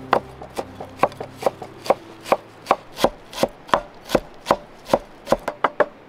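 A large curved cleaver chopping fresh parsley on a wooden cutting board: steady knocks of the blade into the board, about two and a half a second, coming quicker for the last few strokes.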